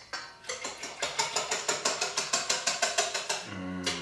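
Wire whisk beating liquid in a stainless steel mixing bowl: quick, even metal clinks, about five strokes a second, that stop near the end.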